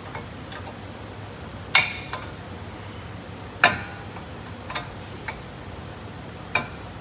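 Sharp metallic clicks and clinks of brake pads being worked into a disc brake caliper bracket, where they will not line up. Five knocks, each with a brief ring, the loudest about three and a half seconds in.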